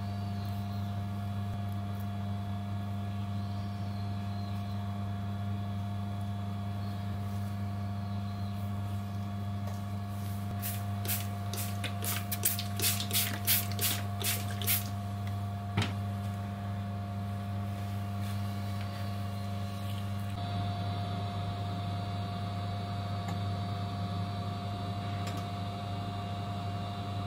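Steady low electrical hum of a running appliance, with a quick run of sharp clicks about halfway through and the hum turning brighter a few seconds later.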